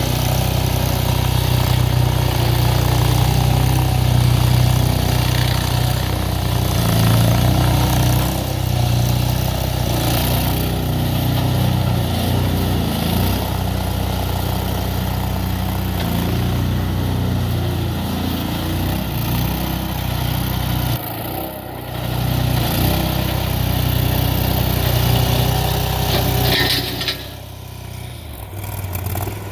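Diggit SCL 850 stand-on track loader's Rato 740 V-twin gas engine running steadily, its pitch wavering now and then, and going quieter near the end.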